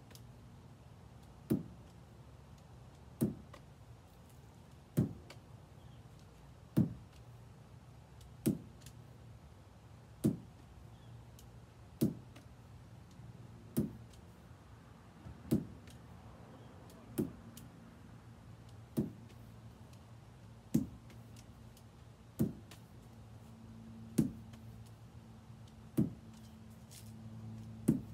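Lacrosse ball landing in the mesh pocket of a lacrosse stick head, a sharp knock about every second and three-quarters as it is tossed up and caught over and over.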